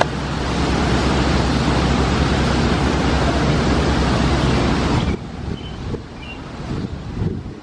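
R160A subway train running on the tracks: a steady rushing rumble of wheels on rail that drops off sharply about five seconds in, leaving a quieter rumble.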